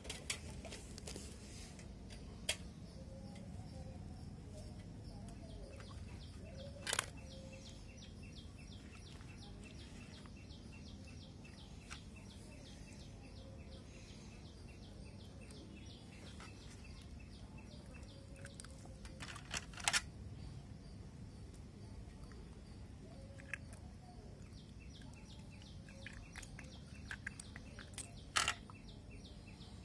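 Faint bird chirping over a steady low background, broken by a few sharp clicks.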